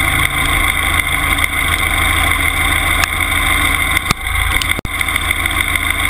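Timberjack 201 log skidder's diesel engine running steadily, heard loud and close from right beside the machine's exhaust stack.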